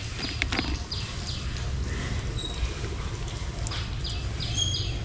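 High-pitched animal calls, each falling slightly in pitch, repeated about three a second in a run at the start and another near the end, over a steady low hum.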